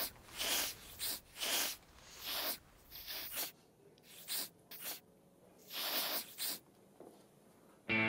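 A person sniffing through the nose in a series of short, separate sniffs, some in quick pairs, with pauses between.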